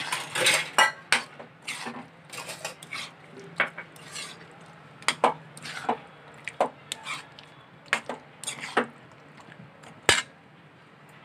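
A metal spoon scrapes and clinks against the sides of a metal kadai while chicken pieces are stirred through thick spinach puree. The strokes come irregularly, and one sharp clank falls about ten seconds in.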